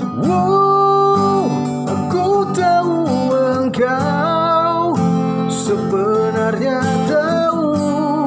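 A man singing long held notes and wavering vocal runs, with no clear words, over acoustic guitar in a slow pop ballad.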